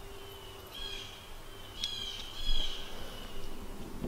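Outdoor ambience with birds calling: thin whistled notes, the clearest about a second and about two seconds in, over a faint steady hum.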